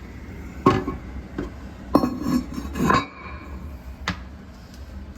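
Porcelain toilet tank lid knocking and clinking against the tank as it is set back in place: a sharp knock under a second in, a cluster of clattering contacts around the middle, and one more knock near the end.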